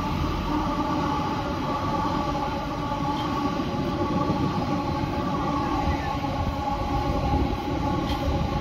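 Class 710 (Bombardier Aventra) electric multiple unit running past and away along the line: a steady rumble of wheels on rail with a held whine of several steady tones.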